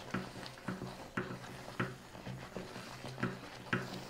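Wooden spatula stirring and pressing thick pav bhaji in a kadhai: soft, irregular knocks of the spatula against the pan, two or three a second, with a faint low hum beneath.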